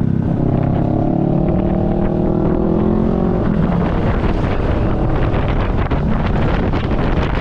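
Yamaha NMAX 155 scooter's single-cylinder engine accelerating, its pitch rising for about three and a half seconds. Then the engine tone fades into a steady rush of wind over the microphone as road speed climbs.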